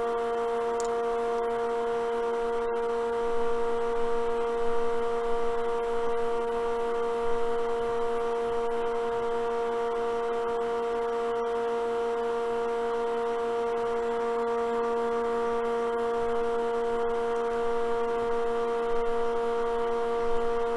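Steady electric motor hum from a woodturning lathe rig with a vacuum chuck, running while a bowl spins.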